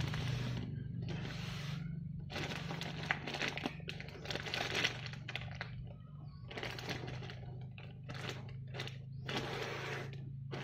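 Clear plastic packaging bag crinkling in irregular bursts as it is handled and turned over, over a steady low hum.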